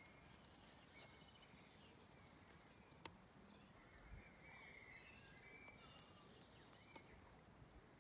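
Near silence: faint open-air field background with a few faint high chirps and a couple of soft clicks.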